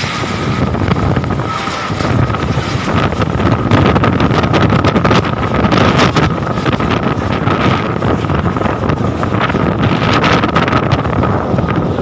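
Strong gusting wind buffeting the phone's microphone, swelling and easing, with scattered clatter and knocks of loose objects and a steady high whistle underneath.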